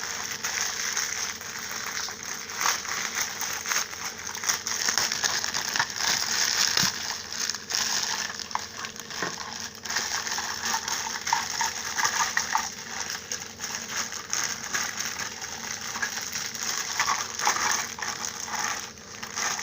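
Close rustling, clicking and clattering of vinyl model-kit parts and their plastic packaging being handled and sorted.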